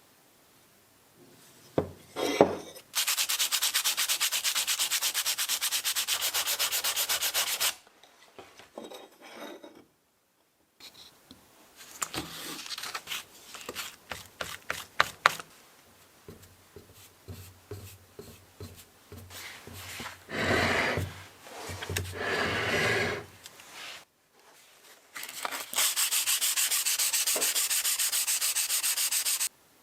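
Steady, rapid abrasive rubbing on a metal drill-press part, as in sanding or scrubbing it clean. Two loud stretches start and stop abruptly, one early and one near the end, with quieter scraping and a series of sharp clicks and knocks between them.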